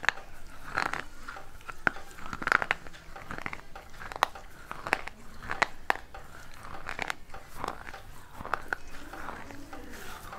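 A person biting and chewing pieces of a baked clay pot: sharp crunches at irregular intervals as the fired clay breaks between the teeth, with softer grinding chews in between.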